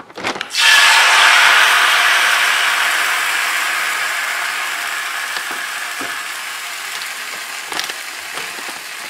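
Thin rice-flour neer dosa batter hitting a hot, oiled iron dosa pan: a sudden loud sizzle about half a second in that slowly dies down as the batter sets. A few light clicks come near the start and later on.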